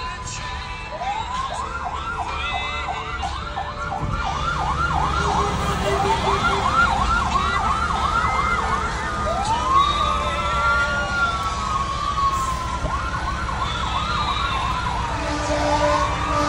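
Fire truck sirens sounding together, switching between a fast yelp of about three sweeps a second and a slower rising-and-falling wail, overlapping one another. A low steady tone joins near the end, over a constant low rumble of engines.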